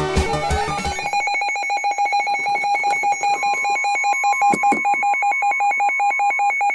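Electronic alarm tone pulsing rapidly in a ringing warble, as music fades out in the first second; a second, steadier tone joins about three seconds in.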